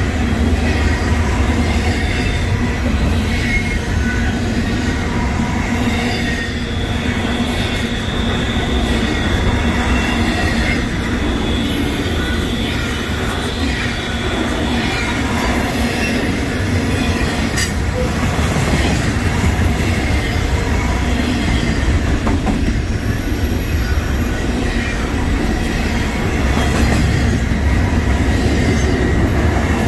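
Double-stack intermodal well cars rolling past: a steady rumble of steel wheels on rail, with a high wheel squeal at times and a single sharp click a little past halfway.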